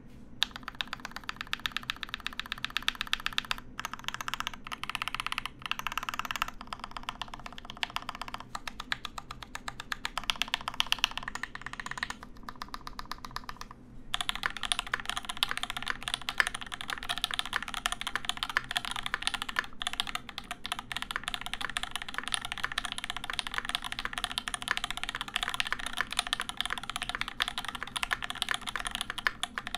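Continuous fast typing on a Volt-80 mechanical keyboard with lubed Durock L7 linear switches, a dense stream of key clacks that breaks off briefly about fourteen seconds in and then picks up denser. The builder finds the board's sound a bit hollow but very smooth, and thinks that adding case foam would even it out.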